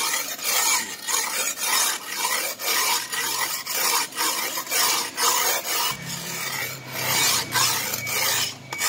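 Wet oval sharpening stone rasping back and forth along the side of a steel sickle blade, in even strokes about two a second, honing the edge after its chips were ground out.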